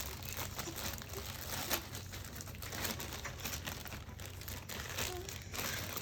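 Continuous irregular crackling and rustling, like crinkled material, over a low steady hum.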